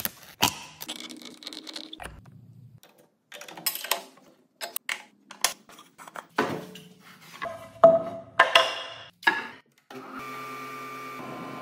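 A run of quick, sharp clicks and knocks as a router bit is handled out of its plastic case and wooden boards are moved and set down. About ten seconds in, a router table motor starts running with a steady whine.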